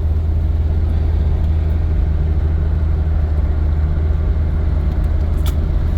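Steady low rumble of a 1988 Jeep Cherokee's 4.0-litre straight-six engine and exhaust heard from inside the cabin while driving. The exhaust pipe, nearly broken in half, is patched with heat-shrink tape and the manifolds are cracked, so the drone is still there but much subdued.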